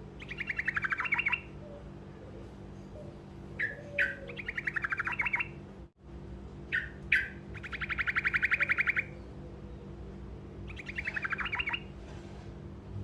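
Songbird of the kind kept in Indonesia as "truco", singing short rolling trills: about four bursts of fast, evenly repeated notes, each roughly a second long, some led by a few sharp single notes. A steady low hum runs underneath.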